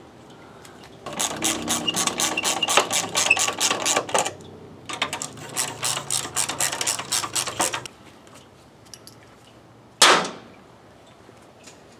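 Socket ratchet clicking quickly as the battery hold-down nut is tightened, in two runs of about three seconds each. A single sharp knock comes about ten seconds in.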